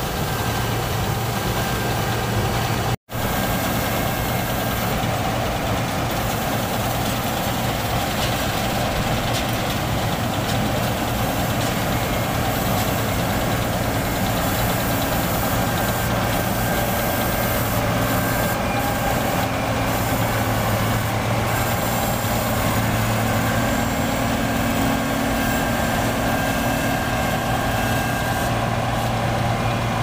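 New Holland 8070 combine harvester running steadily while cutting and threshing rice: an even, continuous engine drone with machinery noise over it.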